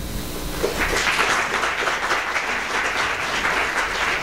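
Audience applauding, starting a little under a second in and going on steadily as dense clapping.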